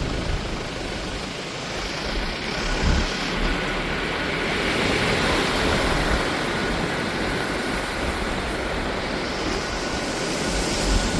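Strong wind blowing in gusts, with low rumbling buffets on the microphone, one about three seconds in and another near the end.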